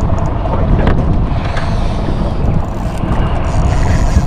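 Steady wind rumble on the microphone aboard a small boat at sea, mixed with the boat's engine and water noise.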